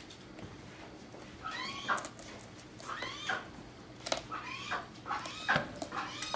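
An animal calling over and over in short, arching cries, about one or two a second, starting about a second and a half in and growing louder toward the end.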